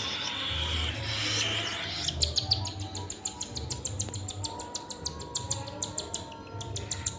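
Cockatiel chick giving rapid, high begging chirps, about seven a second, starting about two seconds in and pausing briefly near the end: the food-begging call of a chick being hand fed. Before the chirps there is a hissing noise.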